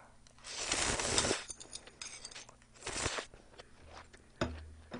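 A mouthful of spicy instant stir-fried noodles (Buldak) slurped up in a long, loud rush, followed by wet mouth clicks of chewing. About three seconds in there is a second, shorter breathy rush of air.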